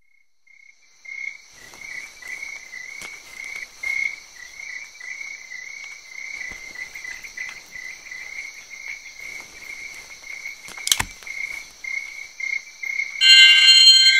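Crickets chirping in a steady pulsing trill, with scattered faint clicks and one sharp click about eleven seconds in. Near the end, much louder music with several sustained high tones comes in over it.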